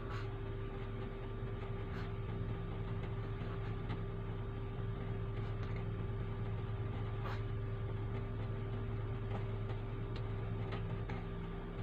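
A steady low machine hum holding a constant pitch, with a few faint clicks scattered through it.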